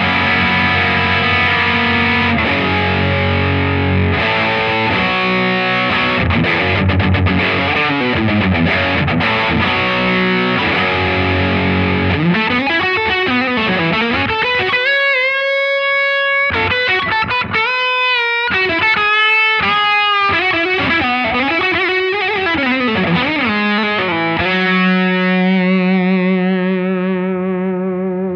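Distorted electric guitar driven by overdrive pedals through a Laney Lionheart Foundry 60-watt combo amp, its bass turned down a notch: chords first, then a lead line with string bends, ending on a long held note with vibrato that fades out near the end.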